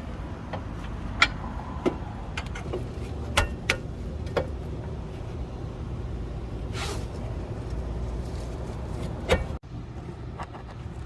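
Scattered sharp metal clanks and knocks as a new front lower control arm is worked into its mounts by hand, over a steady low rumble.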